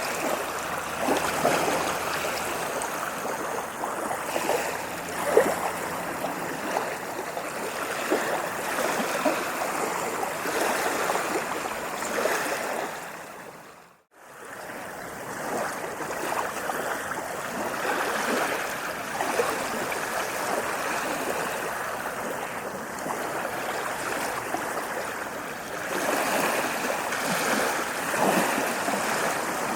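Ocean waves washing and lapping on a shore, a steady rush of water that swells and eases. About halfway through, the sound fades briefly almost to silence and then returns.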